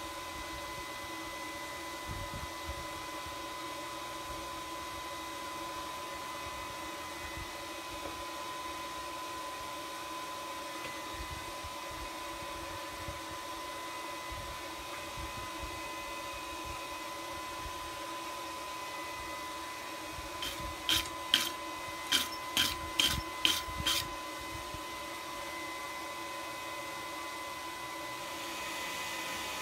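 Steady motor hum with a thin high whine throughout. About two-thirds of the way in comes a quick run of about eight sharp scrubbing strokes, roughly two a second, as a wire brush is worked over the freshly twisted steel bar held in the vise.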